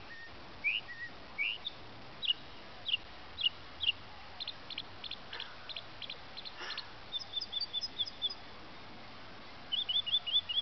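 Northern mockingbird singing a run of varied, repeated phrases: a few rising whistled notes, then a quicker series of short notes, then rapid high chips near the end.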